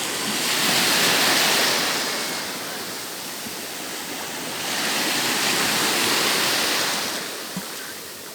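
Sea waves washing in at the shore: two surges of rushing water about four seconds apart.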